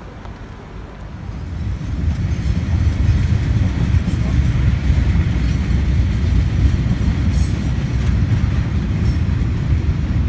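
Freight train of log wagons rumbling past, with a few faint wheel clacks; the rumble grows loud about two seconds in and then holds steady.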